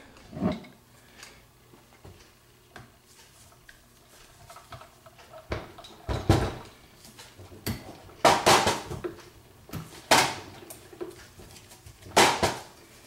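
Handling knocks and clacks of plastic and metal as a new dishwasher circulation motor-and-pump assembly is worked into its mount by hand. The knocks are scattered, with a quiet stretch in the first few seconds, then come in short clusters a second or two apart.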